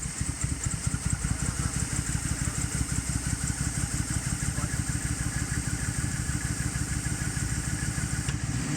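Pontiac G8 GT's 6.0-litre V8 idling roughly, with an uneven, pulsing beat. The owner feels a shake and believes it is not running on all cylinders; it later logged a random-misfire code and a lean code (P0300, P0171), which he puts down to a failing fuel pump.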